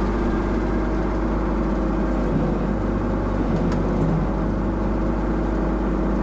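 John Deere 710D backhoe's diesel engine running steadily at a constant speed while the hydraulics move the boom.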